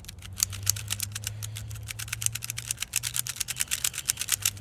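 Plastic Rubik's cube being twisted rapidly by hand, its layers clicking in a fast, uneven run of many clicks a second.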